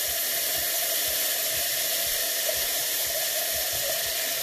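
Water hissing and steaming in a hot frying pan under an upturned bowl covering a cheese-topped beef burger. It makes a steady hiss with a faint sizzle beneath it.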